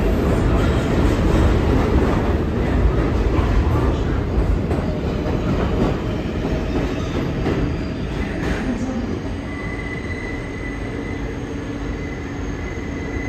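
R188 subway cars running past with a loud, steady rumble. Later an approaching R188 train on curved elevated track adds a steady, high wheel squeal, which starts about three quarters of the way in.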